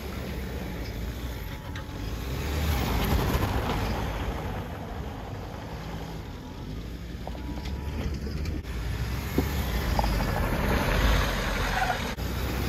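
Mahindra Thar's petrol engine revving as the SUV slides in circles, its tyres scrabbling on loose dry dirt and grass. The sound swells about two seconds in, fades, and swells again near the end as the vehicle comes closer.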